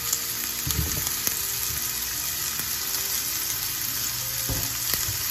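Bolete mushroom wedges sizzling steadily in hot bacon fat in a nonstick frying pan, with a couple of soft knocks as more wedges are set down in the pan.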